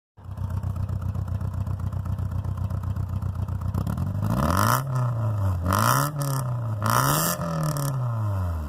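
Honda Civic's engine idling steadily, then revved up and let fall back three times in a row about halfway through.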